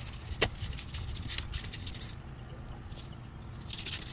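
Hand sanding of a car grille with an abrasive pad: scattered scraping, rubbing strokes that pause for about a second and a half past the middle. One short, sharp sound comes about half a second in.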